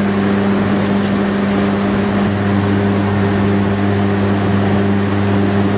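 Steady machine hum: a low drone with an even hiss over it, holding the same level without change.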